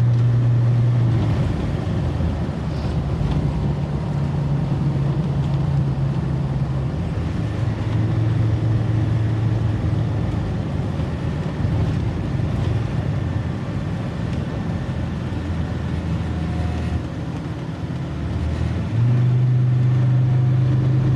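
Old car's engine and tyres on a wet road, heard from inside the cabin while driving: a steady low engine drone that fades and returns several times over a constant rumble and hiss.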